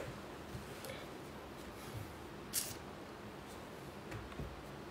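Quiet room noise with a single short sniff through the nose about two and a half seconds in.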